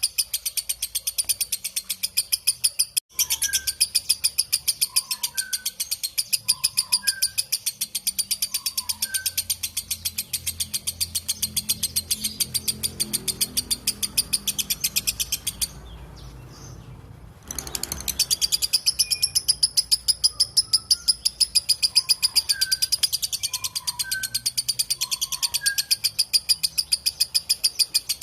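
Lovebird chattering in a long 'ngekek' trill: a fast, shrill string of evenly repeated notes that breaks off for about two seconds midway and then starts again. Softer, lower chirps from another bird come and go in the background.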